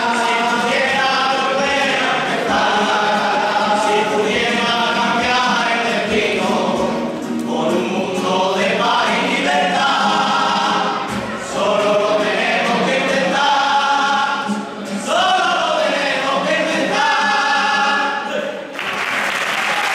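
A carnival comparsa singing together as a choir in sung phrases. The song ends near the end and the audience starts applauding.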